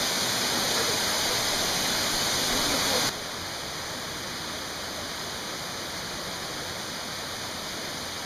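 Steady rush of a small waterfall pouring into a rocky pool. About three seconds in it drops suddenly to a quieter, steady rush of running water.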